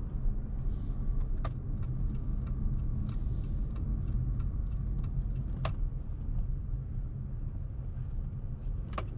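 Steady low rumble of engine and road noise heard inside the cabin of a Jeep Compass with the T270 turbo flex engine, driving at town speed. Faint regular ticking and a few short sharp clicks sit over it.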